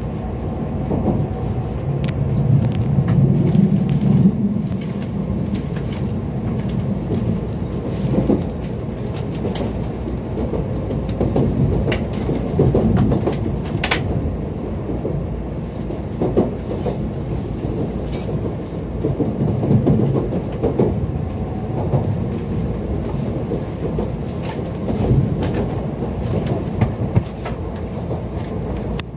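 Running noise heard inside an N700 series Shinkansen car as the train slows into a station: a steady low rumble with scattered clicks and knocks from the wheels on the rails, the sharpest about halfway through.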